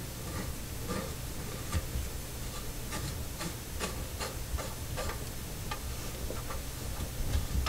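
Small, irregular clicks and taps of a bathroom sink pop-up drain assembly as the drain body is threaded up into the top flange, with the flange held down in the drain opening.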